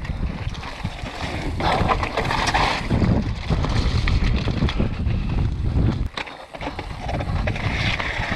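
Mountain bike descending a loose, rocky slate trail at speed: wind rushing over the microphone, with tyres crunching and the bike rattling over stones. The noise eases briefly about six seconds in.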